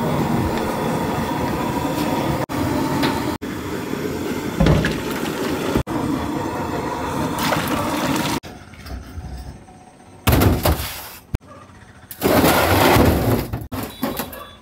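Steady noisy background with a few short knocks, then liquid poured from a plastic jug into a large aluminium pot, splashing in two bursts of about a second each.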